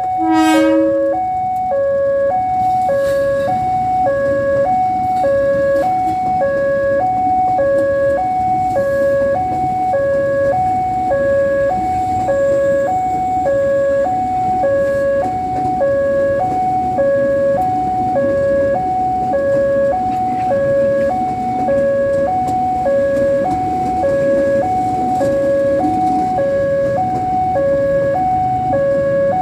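Two-tone electronic warning horn, switching between a high and a low note about every half second without a break, over a steady rumble. It opens with a brief rising swoop.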